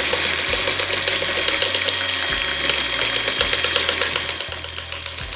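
Philips electric hand mixer running, its beaters whisking a watery mix of red paint, water and guar gum in a bowl. The whir with its fine rattle grows quieter about four seconds in.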